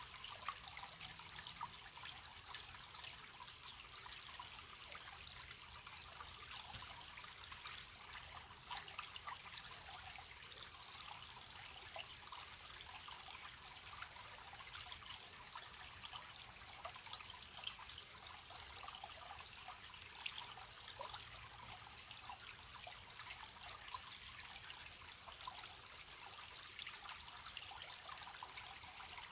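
A gentle stream trickling and babbling over stones, a steady crackle of small splashes, with crickets chirping in a fast, even pulse high above it.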